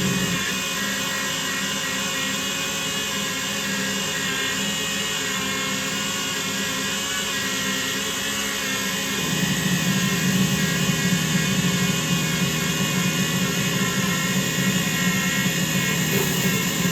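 CNC lathe running its final cut on a turned screwdriver handle: a steady machine hum with a whine above it, growing louder about nine seconds in.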